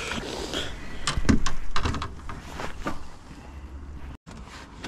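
A few sharp knocks and clunks of gear being handled in a metal-floored fishing boat, with a low rumble beneath.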